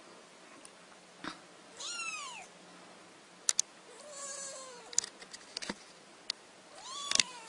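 Kitten meowing: three short mews that rise and then fall in pitch, a couple of seconds apart, with sharp clicks and taps between them.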